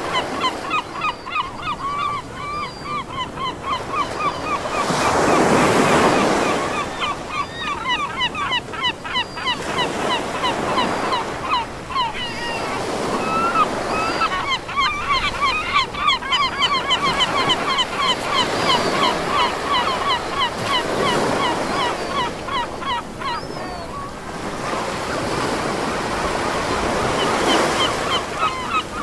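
Surf washing in and out, swelling every few seconds, under a flock of birds calling without pause in short, rapid cries.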